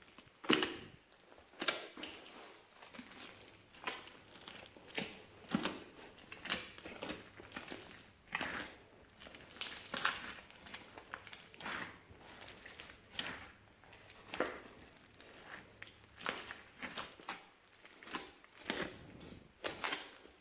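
Hands mixing and squishing old slime, with sticky clicks, pops and crackles coming irregularly about once or twice a second as the slime is pressed, folded and pulled apart.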